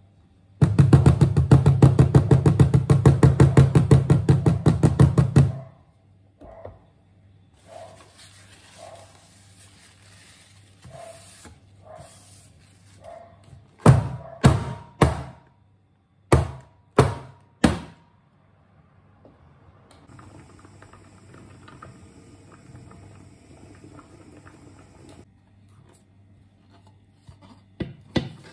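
A metal loaf pan full of batter knocked down on a wooden tabletop six times, in two groups of three, each knock ringing briefly, to settle and level the batter. Before the knocks comes a loud, fast, even pulsing that lasts about five seconds.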